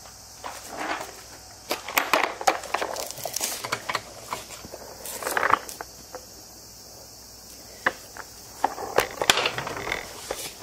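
Handling noise around a car wheel and floor jack: scattered clicks, scrapes and cloth rustling in irregular bursts, over a steady faint high hiss.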